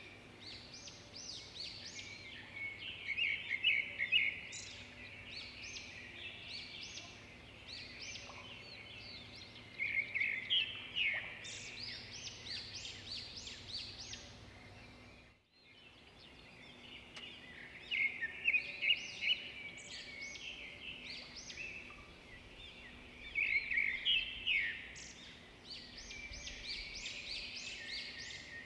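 Small birds chirping and twittering in quick clusters of short notes, coming and going in loud spells, with a brief drop-out about halfway through.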